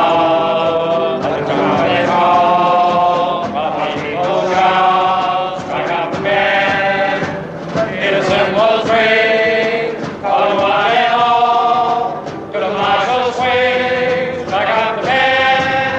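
Male chorus singing together in short held phrases.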